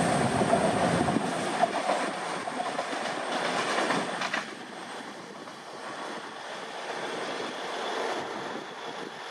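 Class 221 and 220 Voyager diesel multiple units pulling away along the track. Their underfloor diesel engines and wheels fade as they recede, and the rumble drops away about a second in. The remaining rail noise grows fainter after about four seconds.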